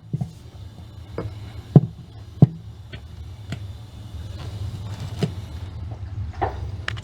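A new sump pump being lowered and set down into the sump pit, knocking against it several times, with two louder knocks about two seconds in. A steady low hum runs underneath.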